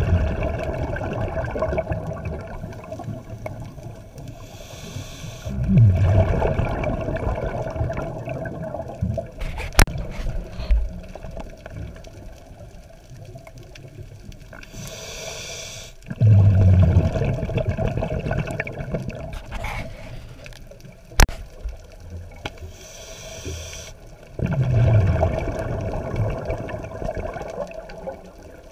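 A scuba diver breathing through a regulator underwater. Each breath is a short hiss on the inhale, then a rumbling rush of exhaled bubbles, repeating several seconds apart, about four times. A couple of sharp clicks fall in between.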